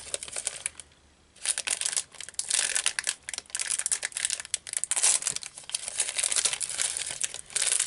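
A plastic Clif Bar wrapper being crinkled and pulled open by hand, in a dense run of crackles. The crackling pauses briefly about a second in, then goes on to the end.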